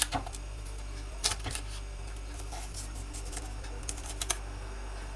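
Kitchen knife slicing a green bell pepper into strips on a wooden cutting board: several irregular sharp knocks as the blade goes through the pepper and hits the board, over a steady low hum.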